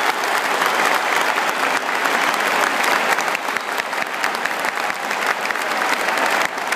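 Large stadium crowd applauding, a dense steady wash of clapping that marks the end of a minute's silence.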